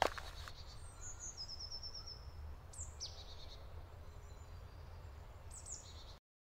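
Songbirds calling in a forest: a few short high chirps and a quick run of repeated notes, over a faint low rumble of wind. There is a sharp knock at the very start, and the sound cuts off abruptly near the end.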